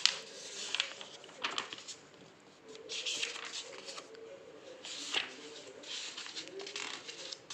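Pages of a thick paper textbook being turned by hand: a series of short paper swishes and rustles, roughly one every second.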